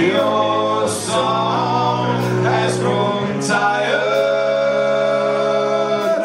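Live rock band playing: long held notes over bass and drums, with cymbal hits.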